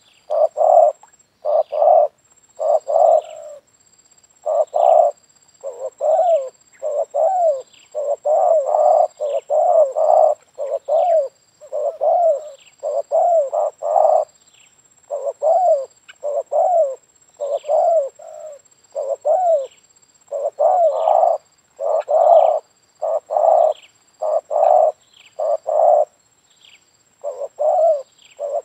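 Spotted dove cooing over and over: short, hoarse coo notes in quick groups of two to four with hardly a pause between groups.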